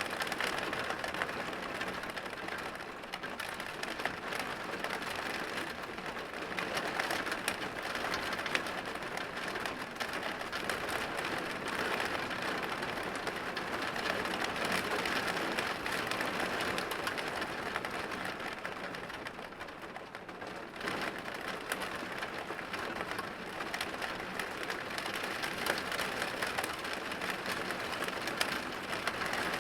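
Rain hitting a window pane: a steady, dense patter of countless small drop impacts on the glass, easing slightly about two-thirds of the way through.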